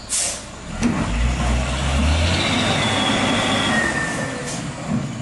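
Mitsubishi Fuso heavy truck's diesel engine revving hard under load as it struggles to climb the ramp, with a short air hiss at the start and again near the end. A high squeal, dropping slightly in pitch, cuts through in the middle.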